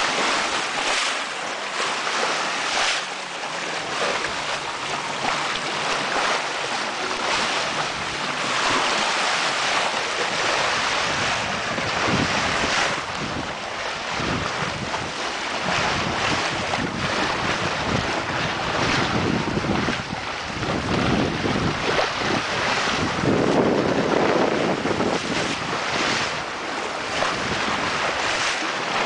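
Racing sailboat's hull rushing through the water, its bow wave splashing and hissing alongside, mixed with wind buffeting the microphone. The noise is steady with uneven swells in loudness.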